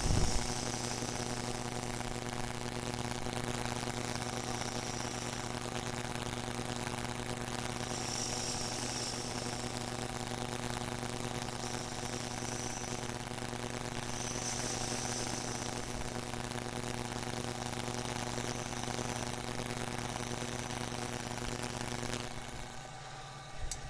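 Small lathe running with a steady motor hum while a cutter takes light passes across a pool cue's ferrule to square it off, a faint scraping hiss every few seconds. The motor is switched off about two seconds before the end, and the hum stops suddenly.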